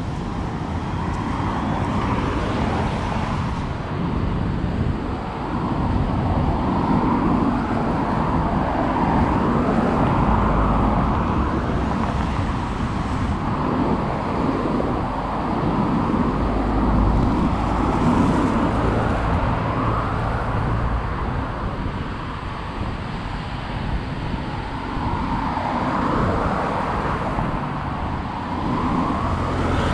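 Road traffic on a multi-lane avenue: cars driving past, a steady mix of tyre and engine noise that swells and fades as vehicles go by.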